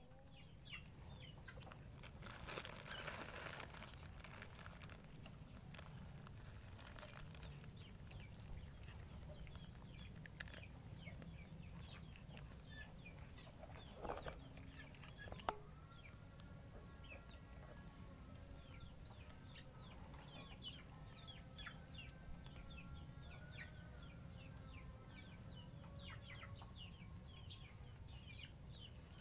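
Faint clucking of chickens, with scattered short chirps over a low steady hum.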